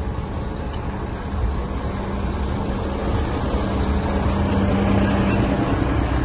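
Tour bus engine idling close by, a steady low hum that grows louder about four seconds in.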